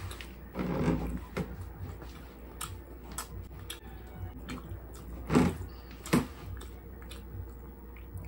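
Close-miked eating of a whole roast chicken: wet chewing and lip smacking with small mouth clicks. There is a louder stretch about half a second in, and two sharp louder smacks about five and six seconds in.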